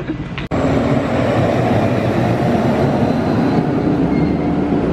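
A heavy film-crew camera vehicle, a truck towing a low trailer with an SUV and camera rigs on it, rolling past on the street: a steady loud rumble of engine and tyres. It starts abruptly about half a second in.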